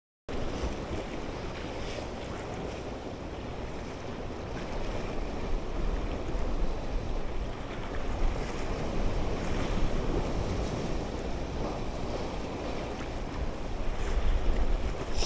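Sea surf washing over the rocks of the shore, with wind buffeting the microphone, starting abruptly a fraction of a second in.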